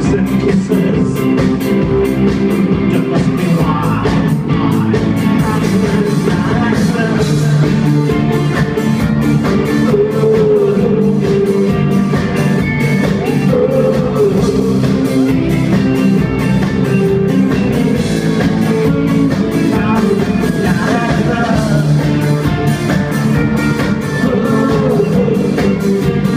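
Live rock band playing loudly: electric guitars, bass, keyboards and a drum kit, with a male lead vocalist singing over them.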